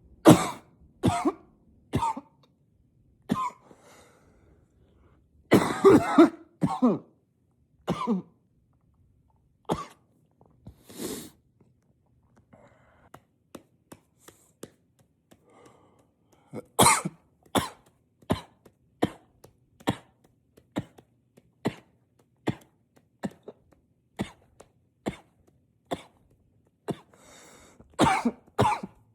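A man's coughing fit: hard, dry coughs in uneven clusters, with a longer harsh burst about six seconds in. After a few quieter coughs in the middle, they settle from about seventeen seconds into a steady run of about two coughs a second.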